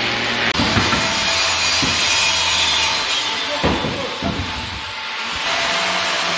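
Power tool cutting wood, running with a steady noise and a motor hum, broken by a few knocks; it eases off briefly about five seconds in, then picks up again.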